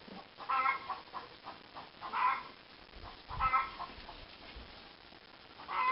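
Three short animal calls, each with a clear pitch, spaced roughly a second and a half apart.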